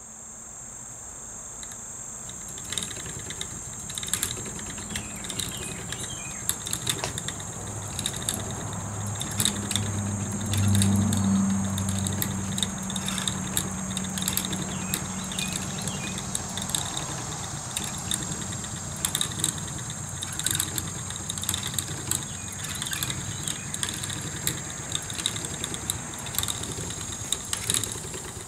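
Wooden treadle spinning wheel running as raw wool is spun, its wheel and treadle giving irregular light knocks and clicks. A steady high chirring of insects runs underneath, and a low rumble swells for a few seconds around the middle.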